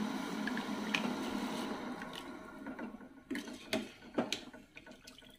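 Water at a rolling boil in a large pot, a steady bubbling that fades away over the first half. A few sharp clicks and taps follow.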